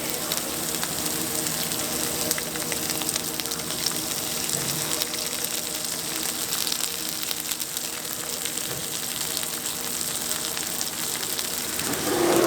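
Lobster sizzling on a hot grill: a steady frying hiss with fine crackling throughout.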